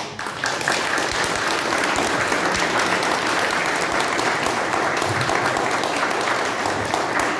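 Audience applauding steadily after a speech ends: a dense, even patter of many hands clapping.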